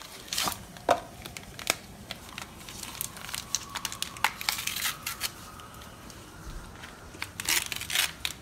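Paper packaging of a Jello packet crinkling and tearing as it is opened, with scattered clicks and a denser burst of rustling near the end.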